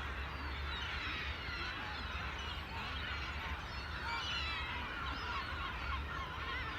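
A flock of seagulls calling over one another, many short, high, overlapping cries, above a steady low rumble.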